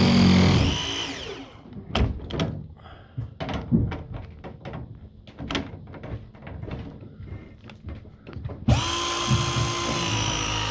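A power tool's motor running, cutting off about a second and a half in. Then come scattered knocks and clatter of tools being handled, and near the end the motor starts again abruptly and runs steadily.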